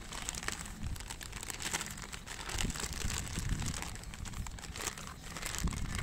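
A thin clear plastic bag crinkling steadily as hands open it out and handle it.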